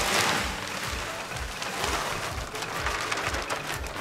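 Bark compost pouring and shaking out of its plastic bag onto loose soil: a rustling, pattering hiss, heaviest in the first half second.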